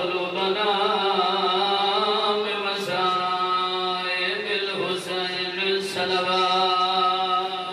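A man's solo melodic chant in a majlis recitation, sung into a microphone: long held notes, broken by short gaps between phrases about three, five and six seconds in.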